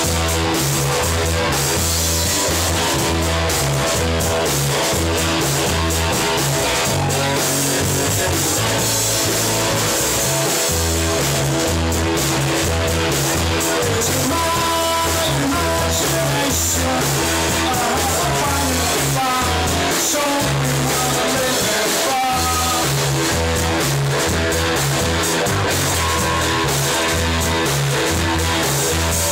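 Rock music with electric guitar and drum kit playing steadily, with some singing.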